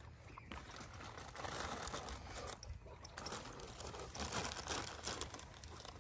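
Plastic treat packet crinkling as it is handled and reached into, in two stretches of rustling: about a second in, and again from about three seconds in.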